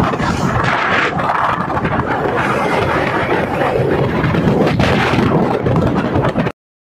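Wind rushing over the phone's microphone on a moving motorcycle, mixed with the bike's running and road noise. It cuts off suddenly near the end.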